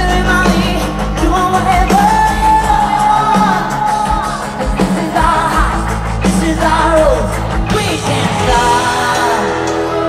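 Live pop-rock band with a female lead vocalist singing over bass, drums and guitars, amplified through a concert PA.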